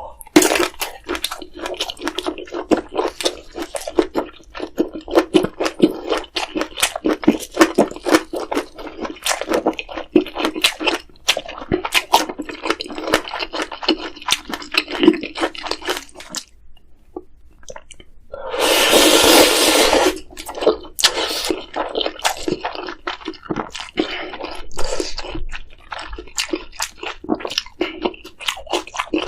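Close-up sounds of someone eating spicy ramyeon: wet chewing, smacking and noodle slurping. A loud slurp lasting about two seconds comes past the middle.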